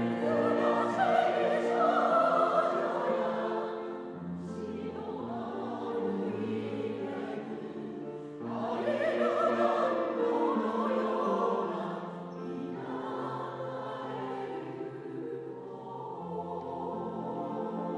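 Mixed choir of women's and men's voices singing with grand piano accompaniment. The choir swells to louder, fuller phrases at the start and again about halfway through, singing more softly in between.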